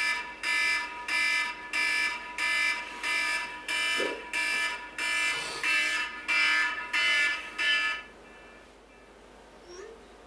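Wake-up alarm beeping, about two electronic beeps a second, then cut off suddenly about eight seconds in.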